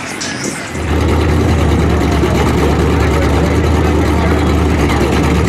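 Engine of a giant-tyred mud truck running loud and steady close by, cutting in abruptly about a second in with a deep, even low pitch. Before that, a quieter mix of vehicle noise.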